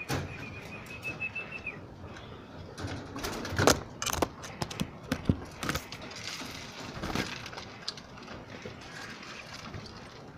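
Domestic pigeons scuffling and flapping their wings as they are caught and handled by hand, with a string of sharp knocks and wing flurries between about three and seven seconds in. A thin, steady high whistle sounds in the first couple of seconds.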